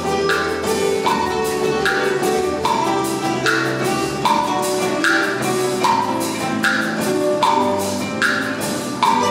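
Live ensemble of acoustic guitars with bass guitar and percussion playing a piece. A steady knocking percussion pattern alternates between two pitches, about one stroke every 0.8 seconds.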